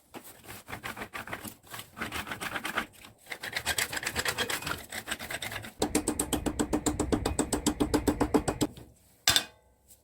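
Back-and-forth strokes of a hand tool working wood, uneven at first, then settling into a steady fast rhythm of about nine strokes a second. A single sharp knock comes near the end.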